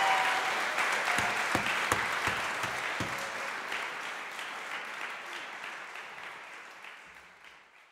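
Audience applauding, with a run of low thumps between about one and three seconds in; the applause fades steadily away to near silence.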